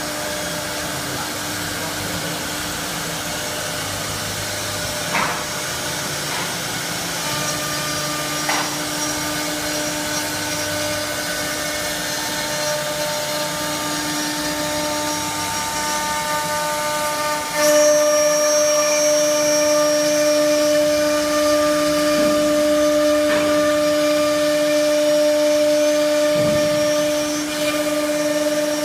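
Four-spindle 1325 wood CNC router running, its spindles whining steadily while a router bit cuts through a wood board. The sound steps up louder a little past halfway, with more whining tones joining in.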